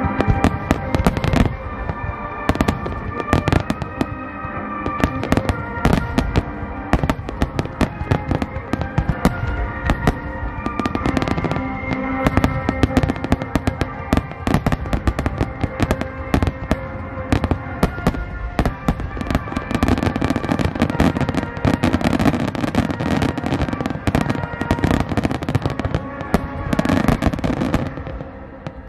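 Starmine fireworks barrage: a dense, rapid run of shells bursting with cracks and booms, several a second, over music. The bursts stop near the end.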